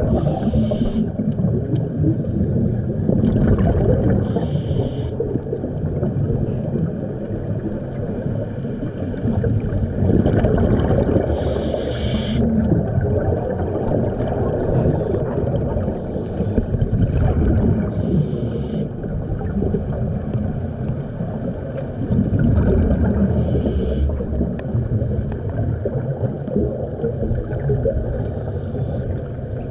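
Scuba regulator breathing heard underwater: short hissing breaths every few seconds over a steady low rumble of exhaled bubbles.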